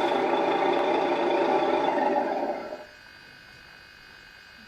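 Simulated truck engine idling steadily from an RC truck's ESS One engine-sound unit, fading out about two and a half seconds in.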